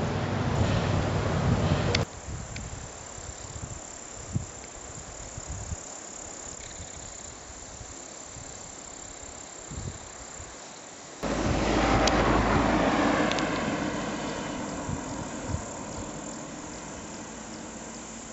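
Outdoor mountain-roadside sound in three stretches split by sudden cuts: a low wind rumble on the microphone, then a quieter stretch of insects chirring, then from about eleven seconds in a loud rumble that starts abruptly and slowly fades.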